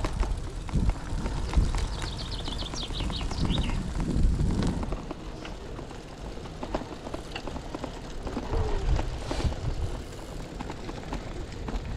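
Brompton folding bike rolling along a gravel trail, with a steady low rumble of tyres and wind and scattered small ticks and crunches. About three seconds in, a bird sings a short trill that drops in pitch.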